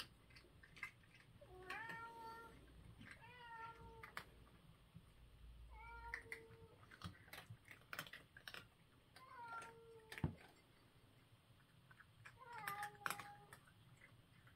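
A cat crunching food from a bowl, with scattered sharp cracking clicks, and short meows about every two to three seconds.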